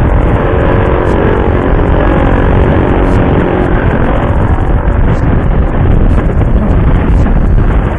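Heavy wind buffeting on an SJ4000 Air action camera's built-in microphone while riding, a loud, steady rumble. Under it, the electric scooter itself adds no engine sound.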